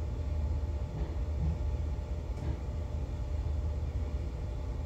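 A motor yacht's main engines running at low power during berthing, heard on deck as a steady low rumble.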